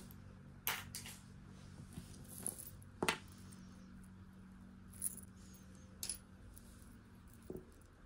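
Light clinks and taps of costume jewelry being handled and set down, about six small knocks with the loudest about three seconds in, over a faint low hum.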